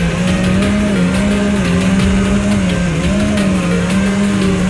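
FPV quadcopter's brushless motors and propellers whining steadily, the pitch drifting gently up and down.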